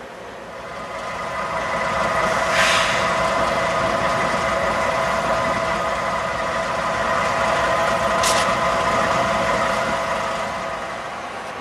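CP AC44CW diesel-electric locomotive idling: a steady engine hum with several held tones that swells in over the first couple of seconds and fades near the end. Two short hisses, about two and a half and eight seconds in.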